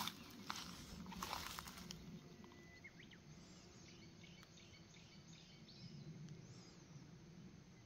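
Rustling and crunching in the first two seconds, then a quiet field with faint, scattered bird chirps.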